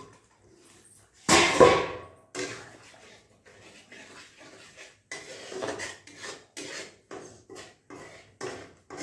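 A metal cooking lid clattering once, loudly, about a second in. It is followed by a flat metal spatula scraping and stirring thick masala gravy in a kadai, in short irregular strokes.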